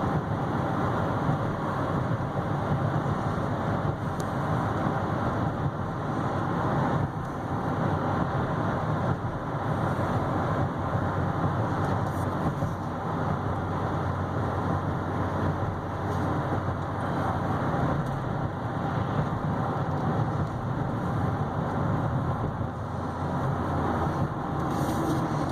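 Steady engine and road noise inside the cab of a 2015 Chevy Silverado 3500HD dually, its 6.6-litre Duramax V8 turbo-diesel pulling along at an even pace with a low hum.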